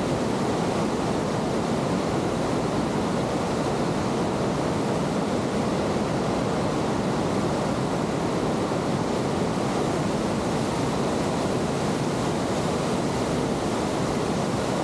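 Steady, deep rushing of the Cribworks whitewater rapids on the West Branch Penobscot River running at high water, about 6,000 cfs.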